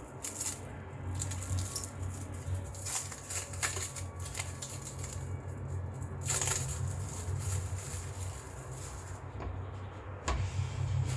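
Scattered light clinks and knocks, a handful of separate sharp ones, over faint background music.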